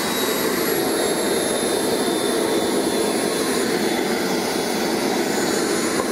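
Home-built KJ66 model gas turbine idling on its own after start-up: a steady jet rush with thin, high-pitched whines over it.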